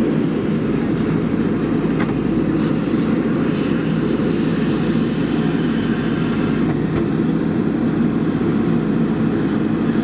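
JCB 3DX backhoe loader's diesel engine running steadily under working load as the backhoe arm digs.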